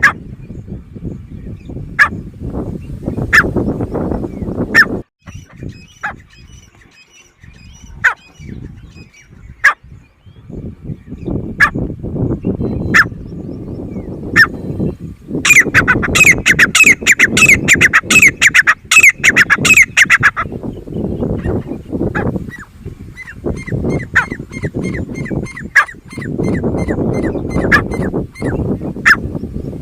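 Grey francolin calling: short sharp notes every second or two, then a rapid run of loud, rising calls from about 15 to 20 seconds in, over a low background rumble.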